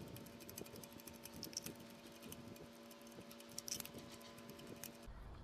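Faint, scattered clicking of a ratchet and 16 mm spark plug socket on an extension, working a spark plug loose in the engine's cylinder head, with a faint steady hum underneath.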